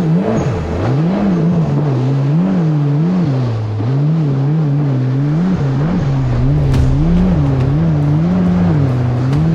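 Supercharged Yamaha GP1800R SVHO jet ski engine running under way. Its pitch swings up and down repeatedly, roughly once or twice a second, then holds steadier near the end.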